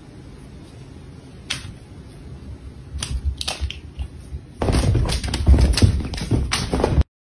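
A few faint clicks, then from about four and a half seconds in a loud stretch of rustling and thumping as a cat thrashes and jumps about on a blanket.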